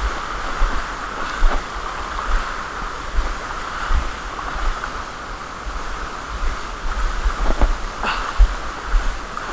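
Small waves washing and breaking in shallow seawater, a steady hiss, with wind buffeting the microphone in irregular low thumps.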